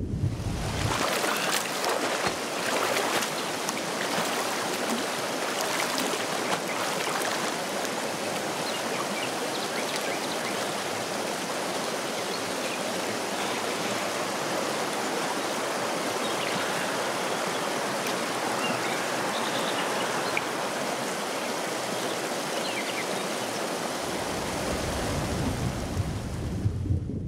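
River water flowing, a steady rush of moving water.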